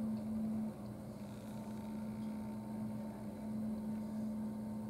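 A steady low engine hum from a grapple-crane truck running while it loads debris, heard through a closed window.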